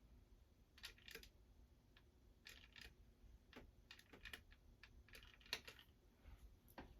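Near silence with faint, irregular clicks and rustles from a hair crimper being clamped and handled in the hair.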